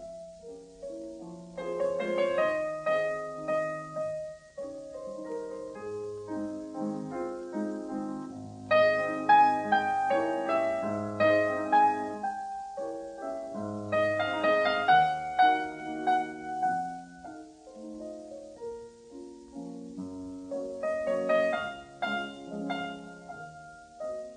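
Background music: a solo piano piece, melodic notes over a bass line, swelling louder in several phrases.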